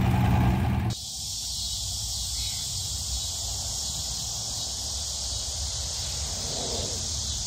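1967 Ford Bronco engine idling, cut off abruptly about a second in. After that, a steady, high-pitched chorus of insects such as crickets.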